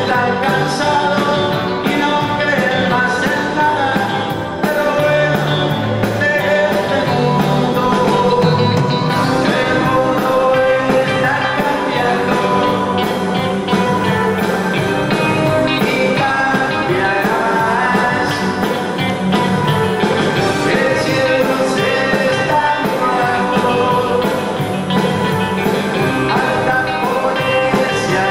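Live band music: a male singer's voice over electric guitars and band backing, playing a slow pop-rock ballad.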